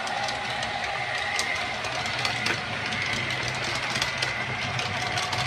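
Model railway trains running on the layout: a steady motor hum and rolling noise with scattered light clicks.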